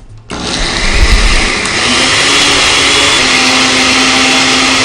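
Electric kitchen blender switched on about a third of a second in and running steadily at speed, a loud whir with a steady hum, blending salsa.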